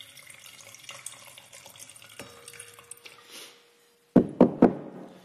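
Red wine pouring from a bottle into a wine glass, a faint liquid trickle. Near the end come three sharp knocks close together.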